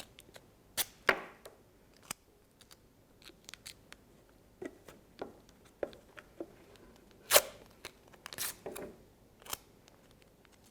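Adhesive tape being pulled off the roll and torn, heard as scattered sharp rips and clicks, about half a dozen loud ones, with fainter rustling of paper between them.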